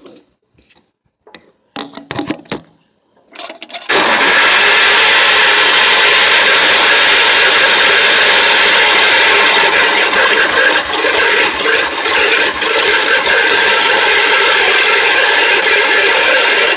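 A few scattered clicks and knocks, then about four seconds in a loud, steady rattling mechanical noise starts suddenly: a Wheel Horse tractor's 10 hp Kohler engine being cranked over without catching.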